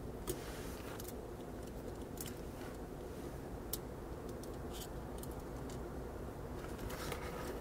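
Scattered small clicks and taps as a smartphone motherboard is pressed and seated into its plastic frame. They sound over a steady low hum, with a sharper click shortly after the start and another near the middle.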